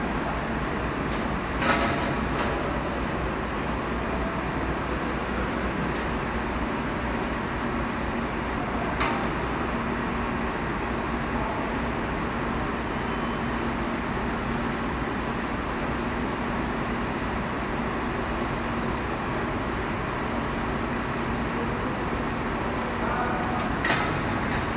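Steady din of textile mill machinery running in a large factory hall, with a faint steady hum through the middle and three brief knocks.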